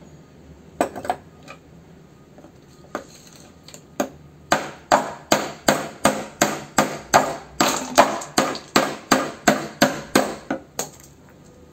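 Hammer blows: a few scattered strikes, then a steady run of about three blows a second for several seconds before they stop.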